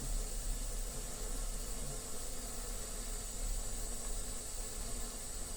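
Bernzomatic ST550K cordless butane micro torch burning with a steady hiss.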